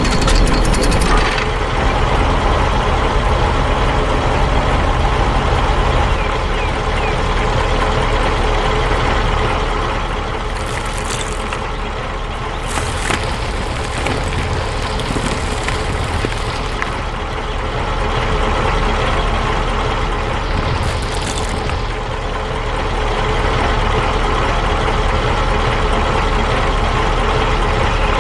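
A heavy vehicle's engine runs steadily. Three short, high hisses come about a third of the way in, shortly after, and about three quarters of the way through.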